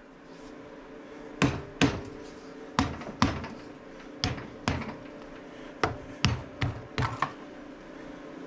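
Rubber mallet tapping on a Harley Sportster's primary cover, about a dozen short knocks, mostly in pairs, to free the stuck cover from the engine case.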